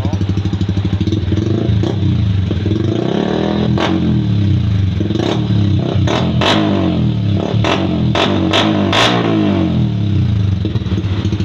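Yamaha Sniper 155's single-cylinder engine breathing through an aftermarket NLK exhaust: idling, then revved up and down several times with a few sharp cracks among the revs, before dropping back to idle near the end.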